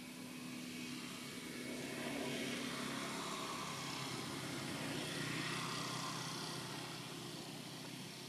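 Engine of a passing motor vehicle, swelling over a few seconds and then fading, a low steady hum under a wider rush.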